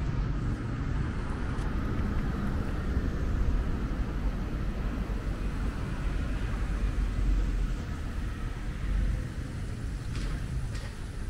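City street traffic: a steady low rumble of cars passing, with a few faint clicks near the end.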